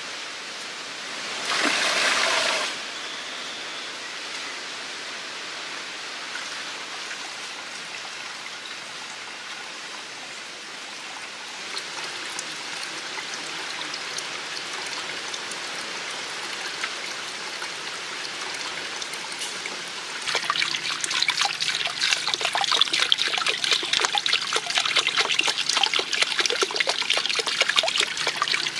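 Water trickling and splashing from a bamboo spout into a small stone-lined pool. It runs steadily, with a short louder rush about two seconds in, and turns louder and splashier from about twenty seconds in.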